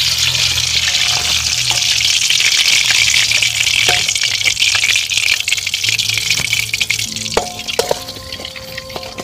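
Hot oil sizzling and crackling in a wok of freshly fried barracuda, with clicks of a wooden spatula as the pieces are lifted out. The sizzle fades over the last few seconds.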